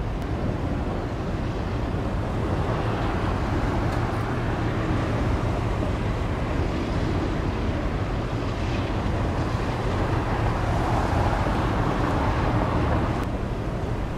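Steady low rumble of a passing ship with wind buffeting the microphone.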